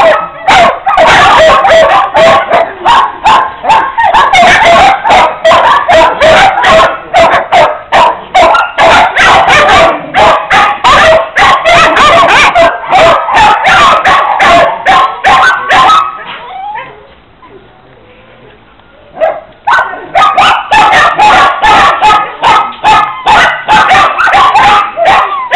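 Many kennelled dogs barking at once, a loud, dense and continuous chorus. It dies down for about three seconds around two-thirds of the way through, then starts up again.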